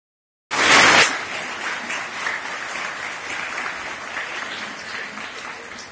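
Audience applauding: a loud burst of clapping about half a second in, then steady clapping that slowly fades toward the end.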